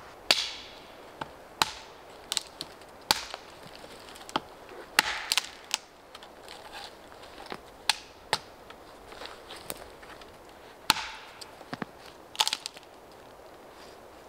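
Dry dead pine branches being snapped by hand for firewood: a dozen or more sharp cracks at irregular intervals, the loudest just after the start.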